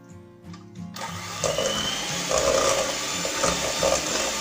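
Electric hand mixer switched on about a second in and running steadily as its beaters work a butter-and-sugar dough in a stainless steel bowl.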